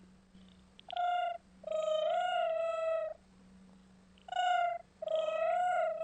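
A domestic cat meowing four times in complaint-like calls: two short and two long, drawn-out ones that waver in pitch. A faint steady low hum sits underneath.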